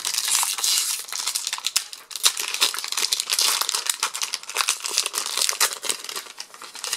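Foil wrapper of a Magic: The Gathering collector booster pack being torn open and crinkled by hand, a dense, steady crackle of sharp little crackles.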